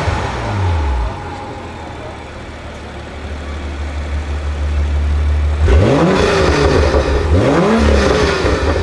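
BMW M2 (F87) turbocharged straight-six breathing through an aftermarket Armytrix exhaust: the revs fall back to a steady idle, then about six seconds in it is blipped three times, each rev rising and dropping quickly.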